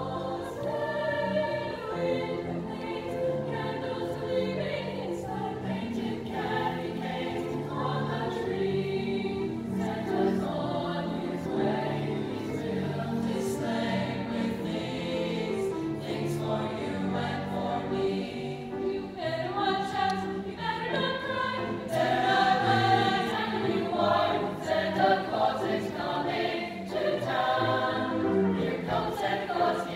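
A mixed choir of boys' and girls' voices singing a Christmas medley in parts, with held, changing chords; the singing grows louder about two-thirds of the way through.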